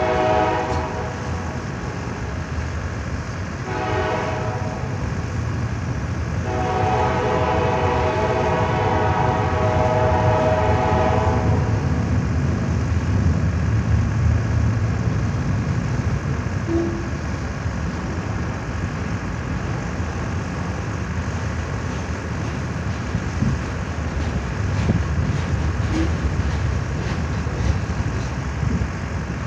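CN train's air horn blowing: a blast ends about a second in, then a short blast and a long one of about five seconds, the pattern that closes a grade-crossing signal. The train then rolls past with a steady low rumble and faint wheel clicks.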